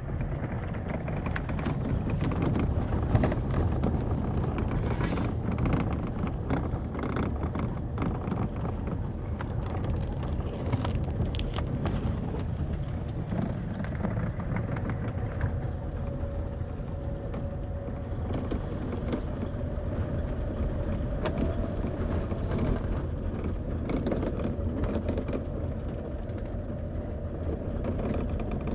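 Irregular clicking knocks from the worn splined section of a 2008 Fiat Scudo van's steering shaft, over steady vehicle noise.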